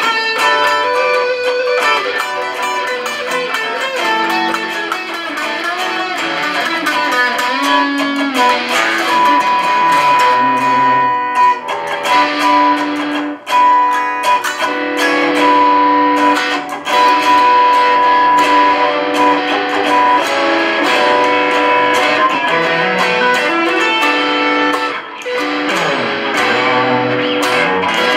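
Two electric guitars, a Stratocaster-style and a thinline Telecaster-style, playing a slow minor-key blues together. One plays held lead notes with string bends over the other's accompaniment.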